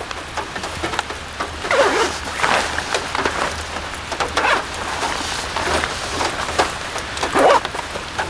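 Rain falling, with many scattered drops tapping sharply on a surface and a few louder swishing sounds in between.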